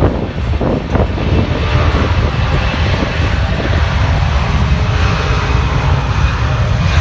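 Jet engines of a C-17 Globemaster III, its four turbofans, running with a steady loud roar.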